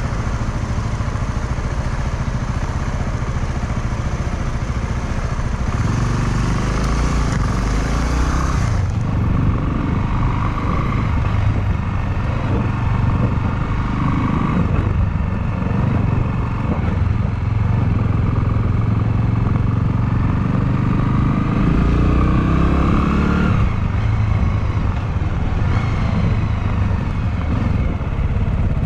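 Honda Clubman motorcycle engine running under way, its pitch rising and falling with the throttle. Late on, the revs climb steadily, then drop suddenly, as at a gear change.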